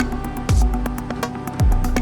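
Electronic background music: a deep bass kick that drops in pitch about once a second, under sustained synth tones and crisp hi-hat ticks.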